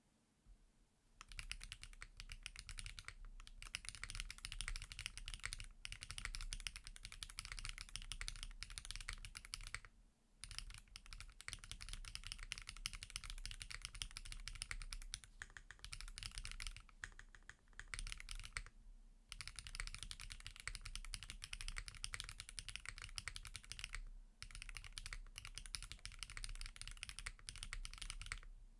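Continuous fast typing on a Qwertykeys QK65V2 65% mechanical keyboard with SWK Yaksu switches, an FR4 plate and SW Foundation keycaps: a dense clatter of keystrokes that starts about a second in, with a few brief pauses.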